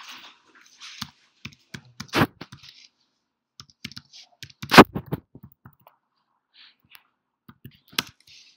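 Typing on a computer keyboard: irregular key clicks, with a few strokes louder than the rest.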